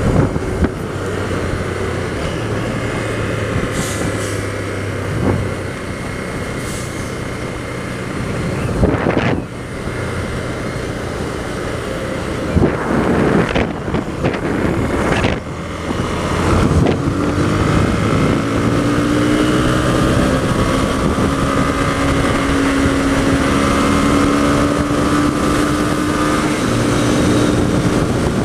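Single-cylinder Honda CB300R motorcycle engine running steadily while riding, with wind noise on the microphone and a few brief swells as traffic passes.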